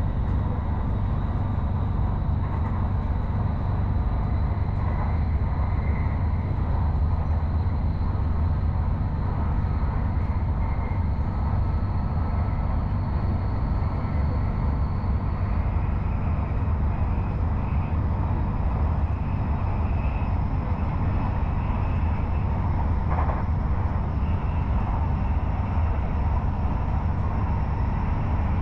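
Airport Rail Link electric train running at speed, heard from inside the carriage: a steady low rumble with wheel and track noise. A thin high whine rises slowly and jumps higher about halfway through.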